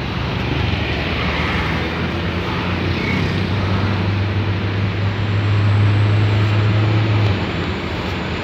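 Hyundai Trajet's 2.0-litre DOHC four-cylinder engine pulling under load with its automatic gearbox while climbing a mountain road, heard inside the cabin with road noise. A low engine drone swells about halfway through and drops away suddenly about seven seconds in.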